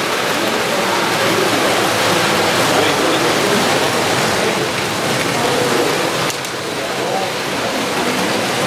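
Vintage model train with passenger coaches running past on metal track, a steady rolling clatter, over the murmur of voices in the hall.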